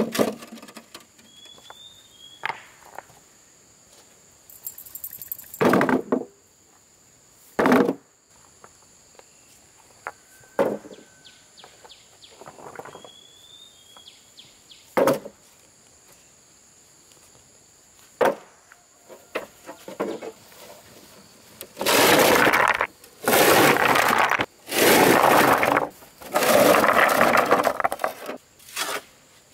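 Hand work with stone and tools: scattered sharp knocks and clatters, then four longer scraping sounds of about a second each near the end.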